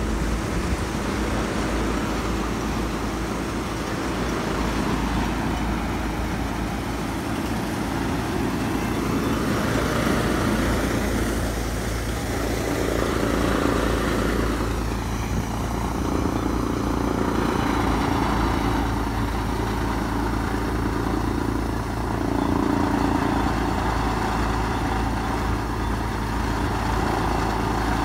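A Kubota MU5501 tractor's four-cylinder diesel engine runs steadily under load, driving a wheat thresher that whirs as wheat straw is fed into it. The sound swells and eases every few seconds as the feed and the load change.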